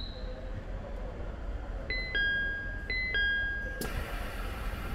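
Train door chime: a high-then-low two-note chime sounded twice, then a sharp knock and a hiss as the doors close, over the low hum of the waiting train.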